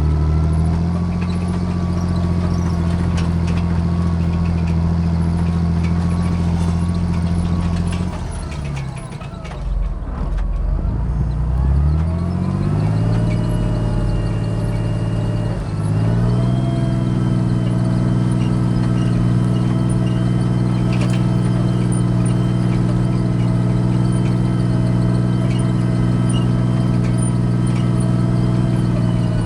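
Large tractor diesel engine running steadily under work. About 8 seconds in the revs drop away, then climb back over the next few seconds; a brief dip and recovery follows near the middle. From then on a faint high whine runs alongside the engine.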